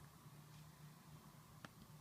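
Near silence: room tone with a faint steady low hum and one brief click about one and a half seconds in.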